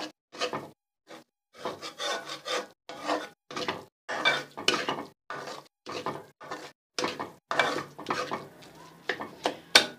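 A spoon scraping and stirring fried onion and cornflour around a pan, in short repeated strokes about two a second, with the flame off as the cornflour is roasted into the mixture.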